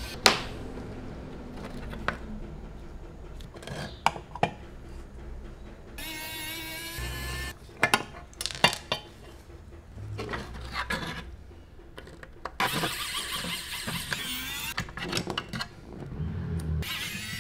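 Hand screwdriver working the screws of a diecast Scania 143H model truck's cab, with scattered sharp clicks and taps of small metal and plastic parts being handled and set down on the workbench, and stretches of scraping.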